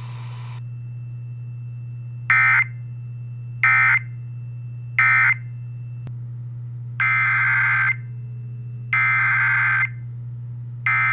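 Emergency Alert System SAME data bursts, the harsh buzzing digital tones of an EAS message. First come three short bursts about a second and a half apart, the end-of-message signal closing the first flood warning. About two seconds later come three longer bursts two seconds apart, the header opening the next warning. A steady low hum sits underneath.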